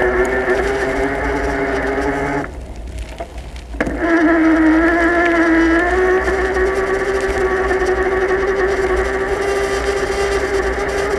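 A small motor's steady whine running at an even pitch over a low rumble. It cuts out for about a second a little over two seconds in, then comes back slightly higher before settling.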